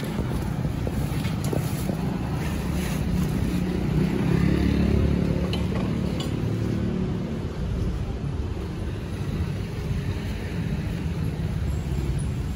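Road traffic: a low vehicle engine rumble that swells about four to six seconds in as a vehicle passes, then settles back to a steady drone.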